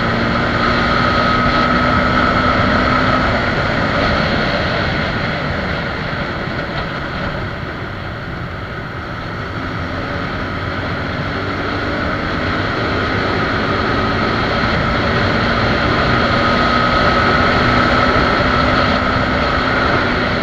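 Suzuki Gixxer SF 250's 249 cc single-cylinder engine running at cruising speed under heavy wind and road noise. The sound eases off about a third of the way in as the bike slows, then builds again as it accelerates.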